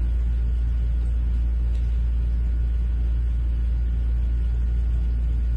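Steady low rumbling hum, unchanging in level, with a faint steady higher tone above it.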